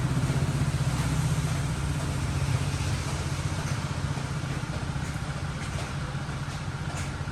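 A vehicle engine idling steadily, with a low, evenly pulsing rumble.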